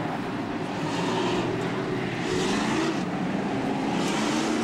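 Stock-car race engines running on the track during warm-up laps, the engine pitch rising and falling as the cars accelerate and ease off.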